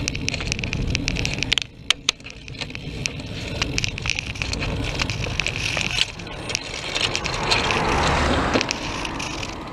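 Wind rumbling on a bicycle-mounted camera's microphone as the bike rides along, with frequent small clicks and rattles. A car passes close by about three-quarters of the way through.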